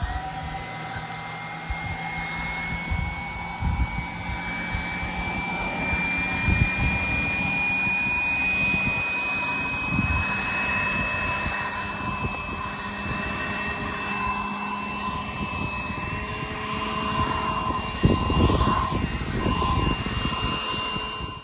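Cordless battery blower, likely a Milwaukee M12 compact blower, running steadily and blasting snow off a vehicle's hood and windshield. A high motor whine over rushing air creeps slowly upward in pitch and steps up about three quarters of the way through.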